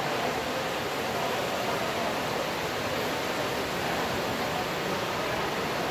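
Steady, even background noise of a large exhibition hall, with no distinct event standing out.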